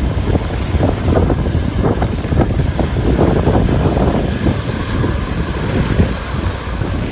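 Strong wind buffeting the microphone, with choppy lake waves splashing and washing against the shore underneath.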